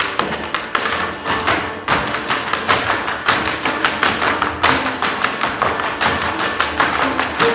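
Rapid percussive dance footwork on a stage floor: sharp taps and stamps, several a second, in a driving rhythm.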